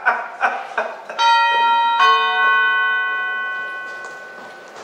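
Doorbell chime sound effect: two ringing notes about a second apart, the second one dying away slowly.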